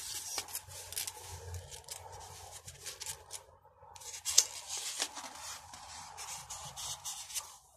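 Paper rustling, scraping and crinkling as hands handle a large picture book and turn its page, with a sharp crinkle about four and a half seconds in.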